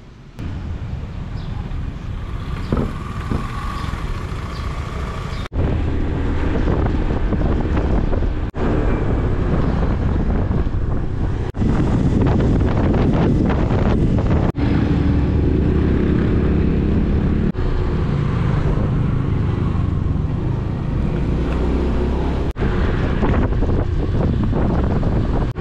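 Wind buffeting the microphone over a small motorcycle's engine running while riding along a road. The sound starts suddenly just after the beginning and is broken by brief dropouts every few seconds.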